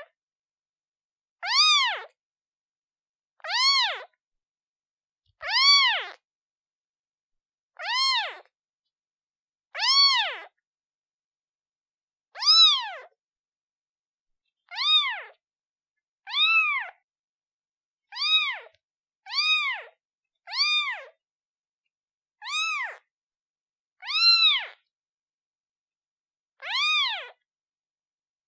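Young kitten meowing repeatedly, calling for its mother: about fourteen high-pitched meows, each rising then falling in pitch, spaced one to two and a half seconds apart.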